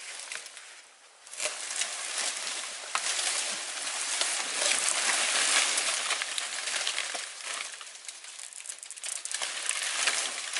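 Dry banana leaves rustling and crackling as they are pulled and pushed through, a dense crinkly crackle that drops away briefly about a second in and then runs on, loudest in the middle.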